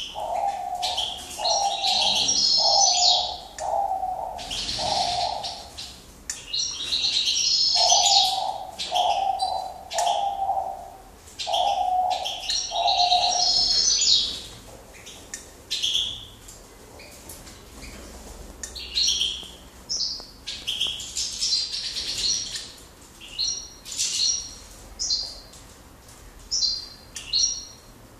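European goldfinches and other aviary finches twittering and singing in quick high phrases. Under them a dove coos in an even series of low notes, five and then six, in the first half.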